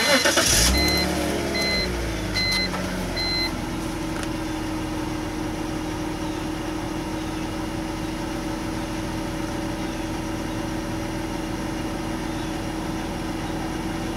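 A BMW E46 325Ci's M54 straight-six engine starts, revs briefly as it catches, then settles into a steady idle within about four seconds. A car warning chime beeps about twice a second through the start and stops a few seconds in.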